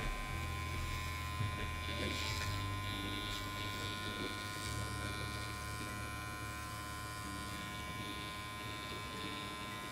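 Electric hair clippers running with a steady buzz as they trim along the nape hairline below a bob, the tone shifting slightly about halfway through.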